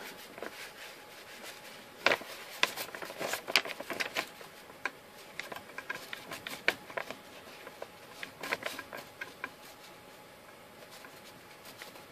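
Small screwdriver tightening an adjustment screw on a 3D printer's extruder carriage: an irregular scatter of light clicks and scrapes, busiest in the middle and fading out near the end.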